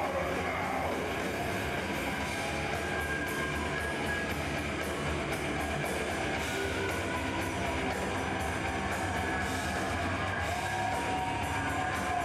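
Death metal band playing live: distorted electric guitars and bass over a drum kit, with cymbals struck in a steady fast beat. The sound is a dense, unbroken wall with no vocals.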